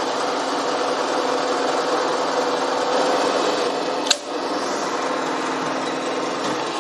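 Milling machine spindle running with a twist drill cutting a vertical hole into a block of aluminium: a steady mechanical hum with two low tones and a sharp click about four seconds in.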